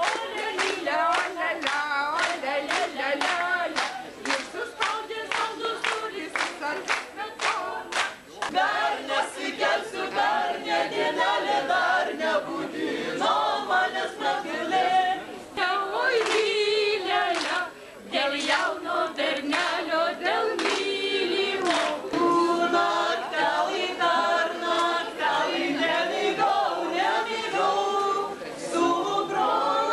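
A group of voices singing a Lithuanian folk song unaccompanied. Steady hand claps keep time through about the first ten seconds.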